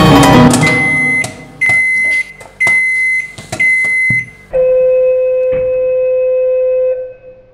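Electronic appliance beeper: four short high-pitched beeps about a second apart, then one long, lower steady tone lasting a couple of seconds. Soundtrack music fades out in the first second.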